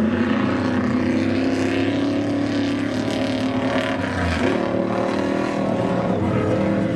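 Off-road race truck engines running hard, several engine tones at once, their pitch rising and falling as they rev.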